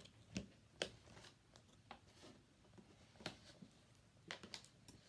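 Faint handling sounds of a plastic fashion doll being worked free of its packaging: scattered sharp clicks and small rustles as the doll and its hair ties are tugged, the two loudest clicks near the start.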